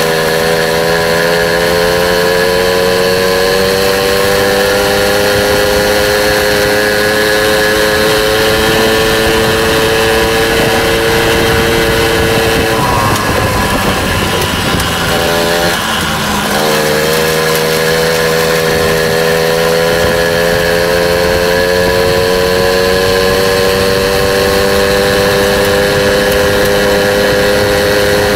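Small motorbike engine running at high revs during a ride, its pitch slowly creeping up. About halfway through, the revs drop and waver for a few seconds, then pick up and climb again.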